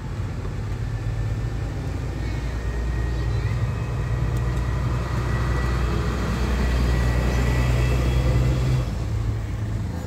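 A vehicle engine running, a steady low rumble that slowly grows louder and then drops back about nine seconds in.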